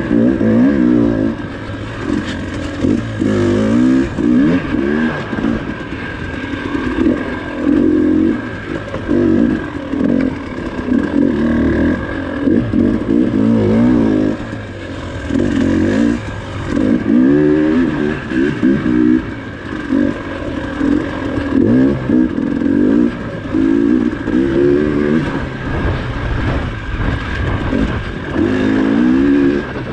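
Dirt bike engine ridden hard on a tight, rough trail, revving up and dropping back with the throttle every second or two.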